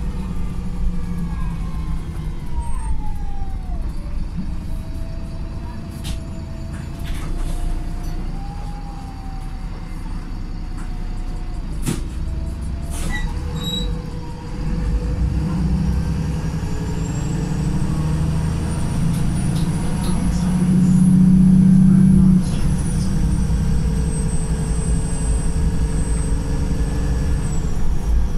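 Wright Pulsar single-deck bus's engine and gearbox running in limp mode. The whine falls as the bus slows, with a few sharp rattles. The engine then pulls harder and the sound rises to its loudest about three-quarters of the way through, where the revs drop suddenly at a gear change.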